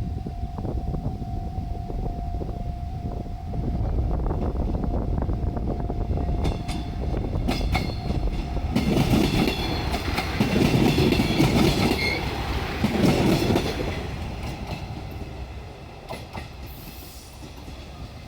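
A diesel railcar passing over a level crossing, wheels clicking over the rail joints, with its engine and running noise swelling to its loudest in several heavy pulses about nine to fourteen seconds in, then fading. A level-crossing warning bell rings steadily for the first few seconds.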